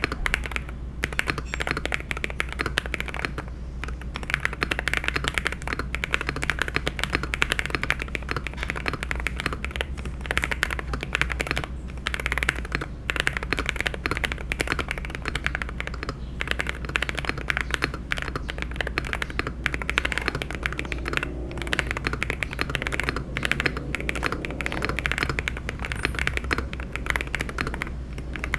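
Typing on a Weikav Sugar65 mechanical keyboard fitted with Akko V3 Cream Yellow Pro linear switches: a fast, continuous stream of keystroke clacks with a few brief pauses.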